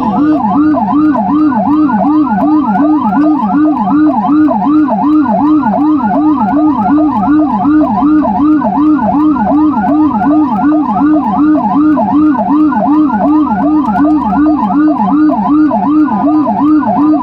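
Two emergency vehicle sirens sound together in a fast, continuous yelp, one lower-pitched and one higher, sweeping up and down a few times a second. They come from the ambulance and its escorting patrol on a priority run.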